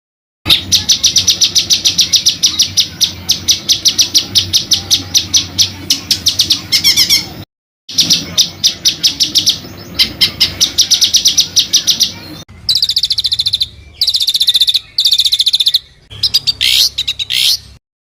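African songbird giving a 'roll tembak': long rolls of rapid, sharp repeated notes, about ten a second, in several phrases broken by short gaps, over a steady low hum.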